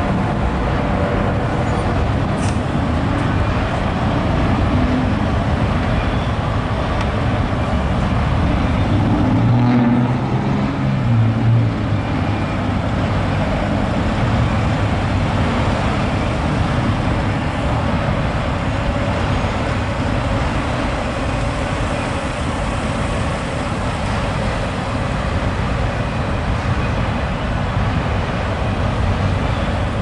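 Steady road traffic noise from a busy street, mixed with a freight train of auto rack cars rolling past beyond it. About ten seconds in, a heavier engine hum swells briefly and fades.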